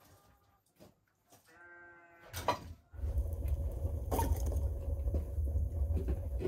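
A single faint animal bleat, lasting under a second, about a second and a half in. From about three seconds in, a wood fire burning inside a clay tandir oven gives a loud, steady low rumble with scattered crackles.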